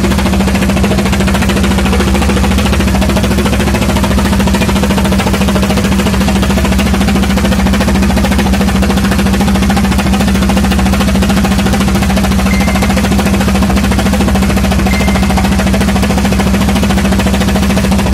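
Small wooden fishing boat's engine running loud and steady while underway, a constant low drone with no change in speed.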